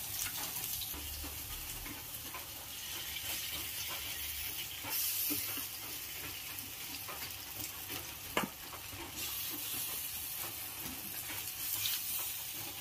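Besan-battered water lily flower fritters sizzling in hot oil in a kadai, a steady frying hiss with small crackles and one sharper pop about eight seconds in.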